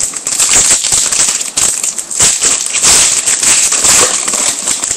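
Trading-card packaging crinkling and tearing as it is ripped open by hand: a continuous, dense crackle.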